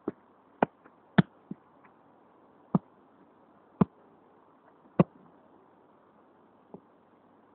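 Football being juggled: about eight sharp thuds of the ball being struck by the foot and leg, irregularly spaced roughly a second apart, the last one fainter.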